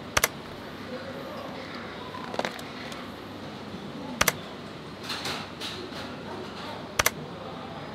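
Three sharp double clicks, each pair very short, spaced about three to four seconds apart, over a steady room background with faint murmuring voices and small clatters.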